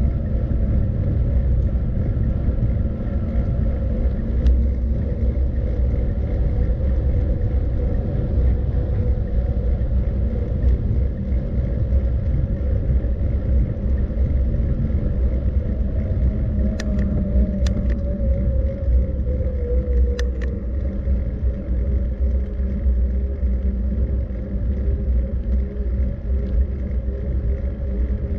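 Steady low rumble of a moving vehicle, with a faint hum that slides down in pitch about two-thirds of the way through and a few sharp clicks at about the same time.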